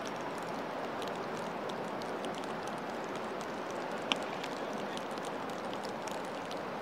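Steady outdoor background noise with faint scattered clicks, and one sharp click about four seconds in.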